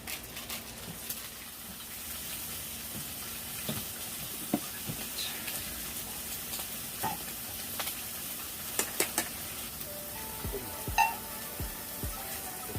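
Pork belly (samgyeopsal) sizzling as it fries, a steady hiss, with scattered clicks and taps of utensils against the pan.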